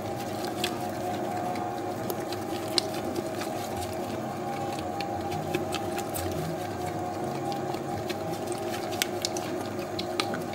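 Spiral dough mixer running steadily, its hook kneading a soft 70%-hydration pizza dough in the steel bowl: a steady motor hum with scattered light clicks.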